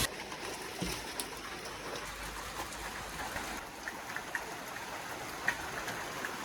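Water trickling and lapping, with a few faint clicks scattered through it.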